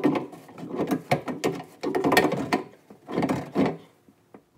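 A threaded plug on a black plastic drain pipe being tightened with an adjustable wrench: the plastic threads creak and squeak in four or five short strokes, then stop near the end.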